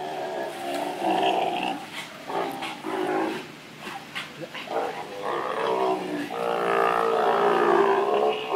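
Sea lions calling: a run of short, broken calls, then from about halfway a long, drawn-out call with a rich steady pitch.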